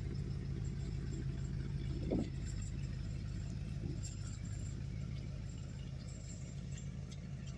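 1961 Buick Electra 225's 401 Nailhead V8 idling, a steady, even low rumble.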